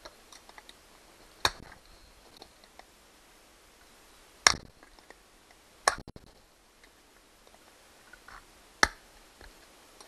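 Needle-nose pliers and wire clicking and knocking against a metal table-lamp base as the wiring is worked loose: four sharp clacks at uneven intervals, the loudest about halfway through, with lighter ticks between.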